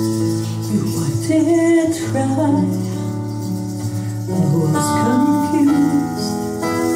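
Live acoustic band: a woman singing over strummed acoustic guitars with bass and other accompaniment, her voice coming in about a second in over a held chord.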